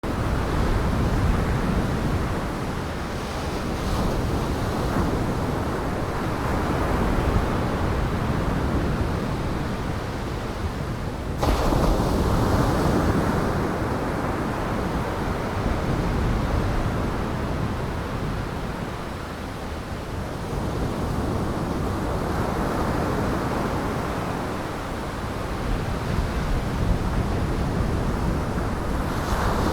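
Heavy surf and gale-force wind: a loud, steady rush of noise that swells and eases every several seconds, with a sudden jump in level about eleven seconds in.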